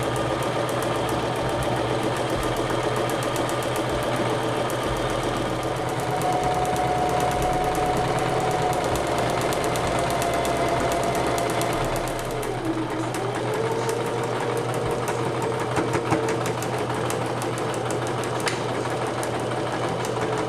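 Domestic electric sewing machine running steadily, its needle stroking rapidly as it stitches a long seam in ripstop nylon. About twelve seconds in the motor briefly slows, then speeds up again.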